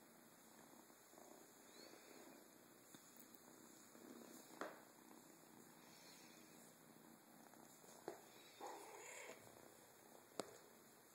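Young black kitten purring faintly while being stroked, with a few sharp clicks and a brief rustle.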